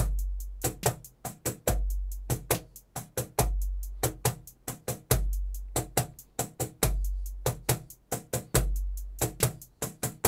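A metronome's drum-machine groove at a slow 70 BPM: a steady run of sixteenth-note ticks with a deep bass kick about every 1.7 s. Slaps and open tones on a hand drum are played along with it.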